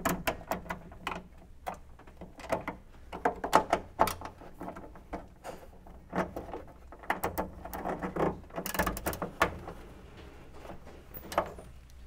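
Ratchet wrench with a 10 mm socket on an extension tightening bolts: short runs of quick clicks from the ratchet, repeated several times with brief pauses.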